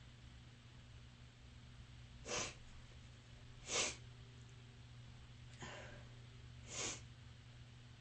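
A person sneezing three times, each sneeze short and sharp, with a fainter intake of breath about a second before the third.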